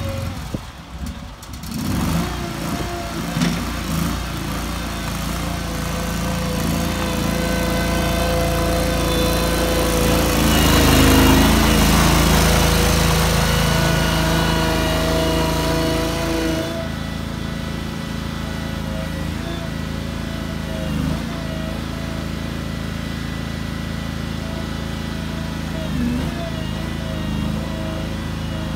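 Briggs & Stratton Vanguard 23 hp V-twin engine running in a Ford CL-20 skid steer as the machine is driven, a steady engine note that grows louder about ten to thirteen seconds in and eases off a few seconds later.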